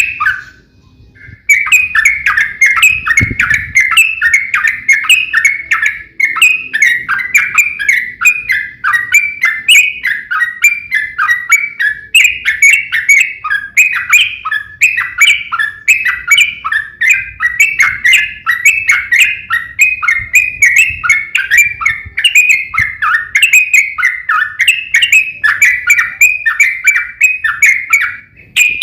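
Yellow-vented bulbul (trucukan) singing a long, rapid run of chattering phrases with fast repeated chirps. It breaks off briefly about a second in, then carries on without pause.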